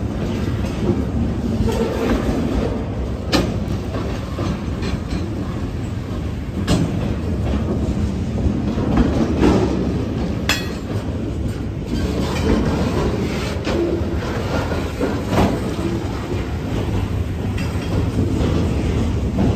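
Freight train of double-stack container well cars rolling past close by: a steady, loud rumble of steel wheels on rail, with a sharp click now and then.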